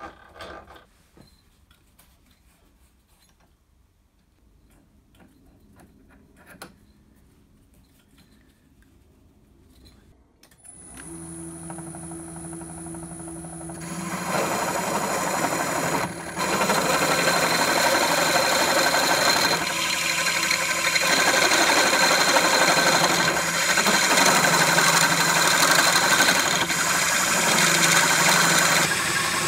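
Drill press motor starting up about a third of the way in, then a step drill cutting into a metal casting: a loud, steady cutting noise that eases off briefly several times as the feed is let up.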